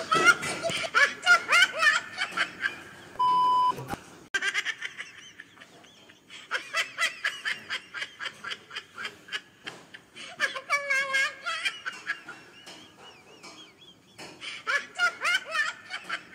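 Bouts of rapid, high-pitched laughter, one burst after another, in three stretches, with a short steady beep about three seconds in.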